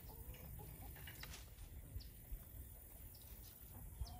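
Chickens clucking faintly, with a few soft clicks.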